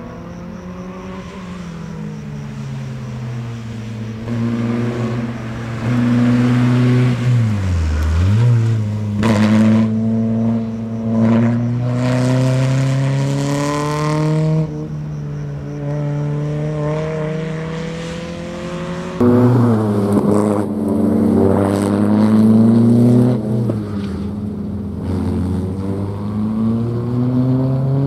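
Small rally hatchback's engine driven hard around a tight slalom: the revs climb on each acceleration and fall sharply as the driver lifts off for the next turn, several times over, with one deep dip to near idle at about eight seconds.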